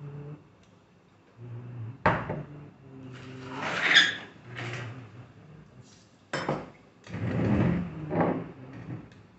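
Eating by hand from a steel plate: flaky Kerala parotta being torn and pressed into beef fry, with fingers and food rubbing and knocking on the plate. Sharp knocks about two seconds in and again past the middle, each followed by a louder rustling swell.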